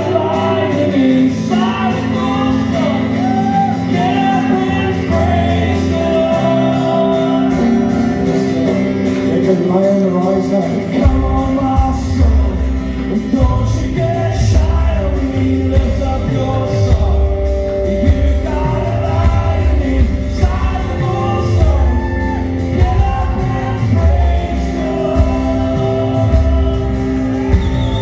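Worship song: a man singing over a band, with a heavy bass and drum beat coming in about eleven seconds in.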